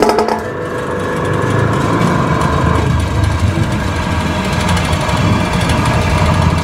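Stainless-steel rotary vibrating flour sieve (Maksindo MKS-AYK45, 180 W motor) switched on and running loaded with rice flour. Its steady vibrating hum builds over the first couple of seconds, then holds level.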